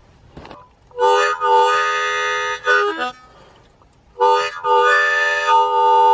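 Harmonica playing full held chords in two phrases: the first starts about a second in and lasts about two seconds, and the second starts a little after four seconds in.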